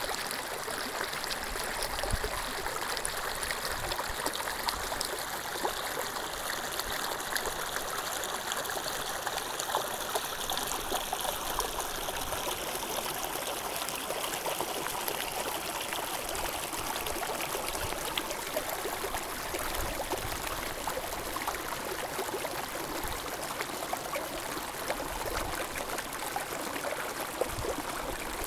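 Mountain stream flowing: a steady rushing of water with small splashes scattered through it.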